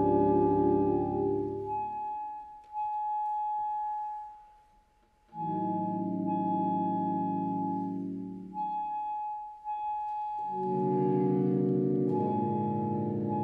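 Saxophone ensemble playing slow sustained chords under a long held high note. The lower parts stop about two seconds in and the music falls almost silent for a moment near the middle, then full chords come back in and swell again near the end.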